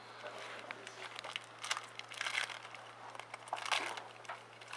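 Foil trading-card pack wrapper crinkling and crackling in short irregular bursts as a pack is torn open and the cards are handled.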